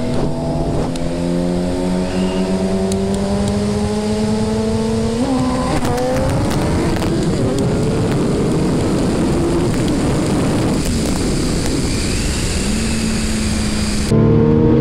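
Sport motorcycle engine pulling at speed, its pitch climbing slowly and steadily, over a constant rush of wind noise. About five seconds in the pitch jumps and the engine note turns rougher for a while, then steadies again, and it gets suddenly louder near the end.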